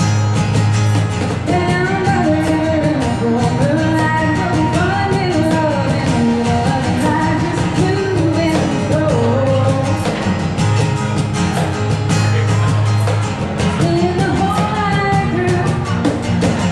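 Live country-rock song: a singer's melody over guitar accompaniment.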